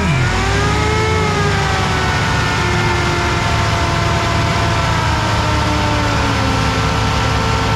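Massey Ferguson tractor diesel engine at full throttle under heavy load, pulling against another tractor. Its note rises for about a second, then slowly sags as the engine lugs down against the pull, over a steady low drone.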